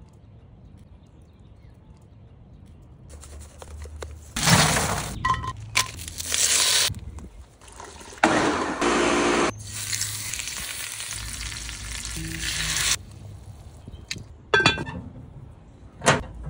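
A string of short cooking sounds cut one after another, after about three quiet seconds: food sizzling, and liquid pouring into a blender jar about eight seconds in.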